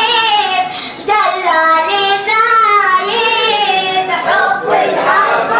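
A single high voice chanting a devotional Arabic mawlid poem in a melismatic line, with a brief breath about a second in.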